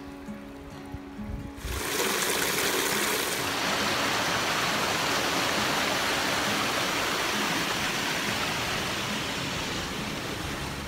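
Rushing water of a shallow mountain stream flowing over rocks: a steady hiss that comes in about two seconds in and holds.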